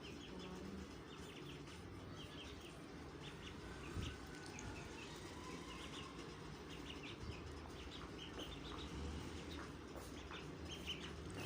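Young chicks and ducklings peeping: many short, high cheeps repeating irregularly over a low background rumble, with a single knock about four seconds in.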